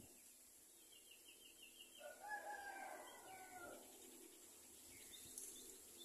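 A rooster crowing once, faint, about two seconds in: one drawn-out call lasting under two seconds. Just before it comes a quick run of faint high chirps.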